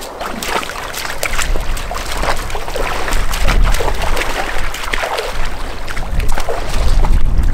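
Boots and a dog's paws splashing through a shallow, rocky creek, with irregular splashes over the sound of the water running across the stones.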